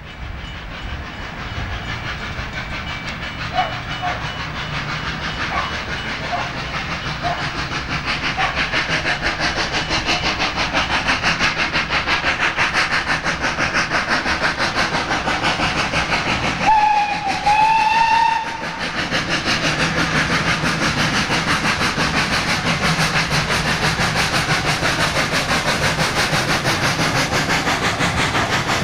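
Steam tank locomotive F 251 running under steam, its exhaust beats coming fast and even and growing louder over the first several seconds. About two-thirds of the way through it gives one steam-whistle blast of about two seconds, the loudest sound here.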